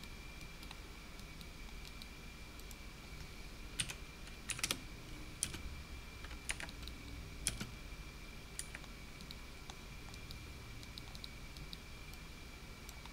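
Computer keyboard keys pressed in scattered, irregular taps, bunched together in the middle and lighter toward the end, over a faint steady high-pitched tone.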